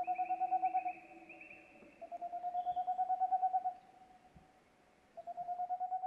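Tengmalm's (boreal) owl singing: rapid runs of soft hoots, about nine a second, in three bouts of one to two seconds each with pauses between.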